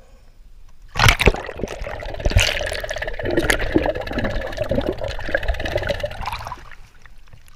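Water splashing and gurgling around a mask-mounted GoPro as it goes under a pool's surface. A sharp splash comes about a second in, then muffled underwater rushing and bubbling that dies down shortly before the end.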